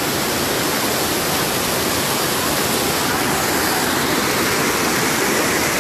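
Waterfall in spate after heavy rain: muddy floodwater rushing over rocks close by, a loud, steady, unbroken rushing.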